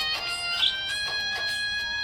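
Instrumental music with several steady held notes, part of a children's rhyme song.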